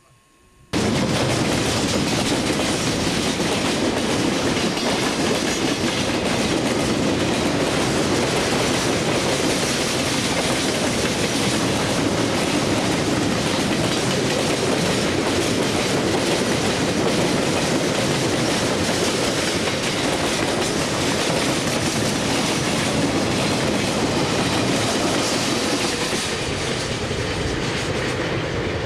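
Long freight train of tank cars, boxcars and open wagons rolling past close by: a steady, loud rumble of wheels on rail that cuts in abruptly about a second in.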